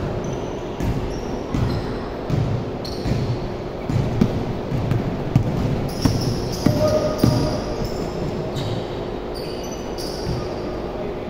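Basketball bouncing and thudding on a hardwood gym floor, with sneakers squeaking in short high chirps, all echoing around a large indoor gym.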